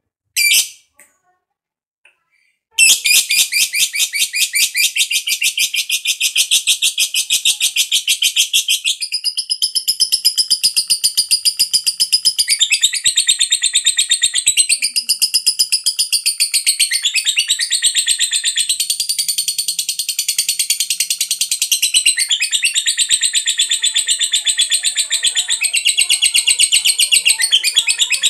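Lovebird chattering in a long unbroken 'ngekek': a fast, high-pitched run of rapid chirps that starts about three seconds in, after two short calls, and carries on without a break, shifting up and down in pitch.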